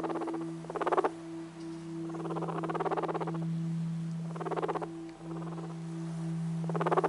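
Guinea pig purring: about five bursts of rapid, fluttering pulses, most of them short and one lasting over a second about two to three seconds in. A steady low hum runs underneath throughout.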